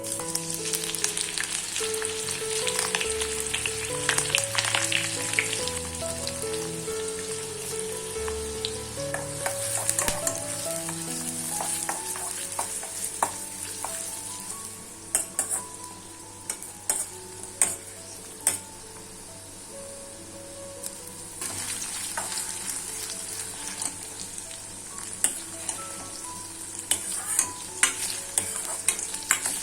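Food frying in hot oil in a pan, a steady sizzle, with a spatula stirring and knocking against the pan now and then, more often in the second half. Soft background music runs underneath in the first half.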